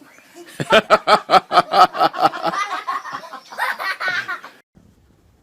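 A person laughing hard: a rapid run of laugh pulses, about four or five a second, lasting around four seconds before it cuts off suddenly.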